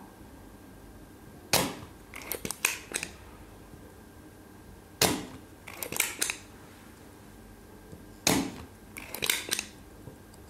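ZEL OD-25 Turbo spring-loaded desoldering pump being fired and re-cocked three times. Each time its plunger releases with a sharp snap, followed about half a second later by a quick run of smaller clicks as it is pushed back down and latched.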